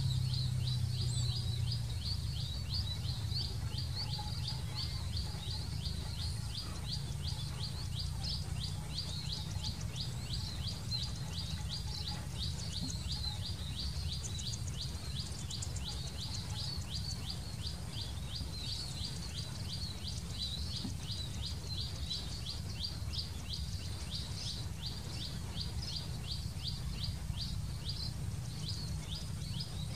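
Paddy-field ambience: a continuous, even run of short high chirps, about four a second, over a steady low rumble.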